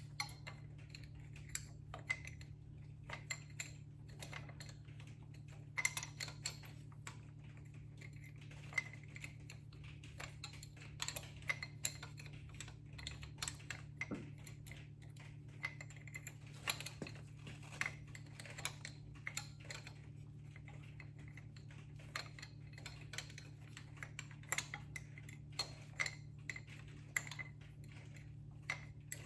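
Wrench clinking on a 9/16 nut of a diesel injection pump mount, turned in a little at a time: light, irregular metal clicks. A steady low hum runs underneath.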